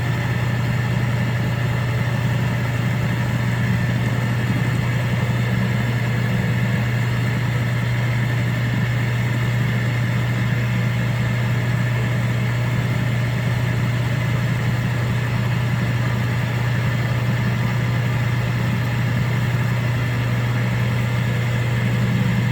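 Drill press motor running steadily with a 5/16-inch end mill in the chuck, a constant low hum, during a light final cleanup pass.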